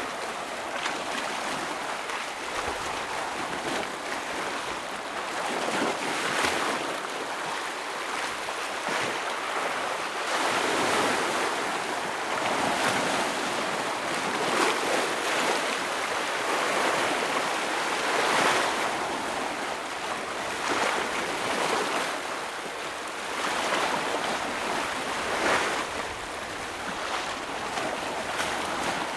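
Ocean waves breaking and splashing against shoreline rocks: a continuous wash of surf that swells into louder surges every few seconds.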